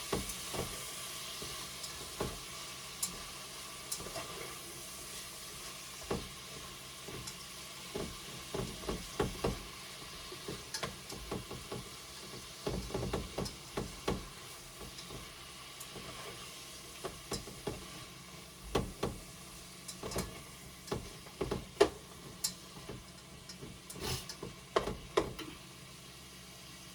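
Shrimp and garlic sizzling in oil in a frying pan, with frequent irregular taps and scrapes of a utensil stirring them.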